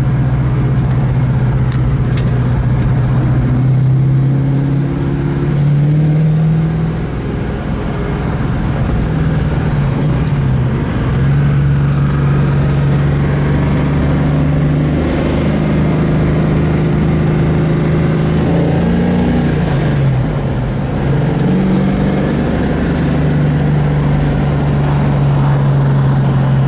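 A 1967 Ford Mustang's 390 cubic-inch S-code V8 under way on the road, heard from inside the cabin. The engine note climbs and falls several times, with sharp dips in pitch about seven, ten and twenty seconds in.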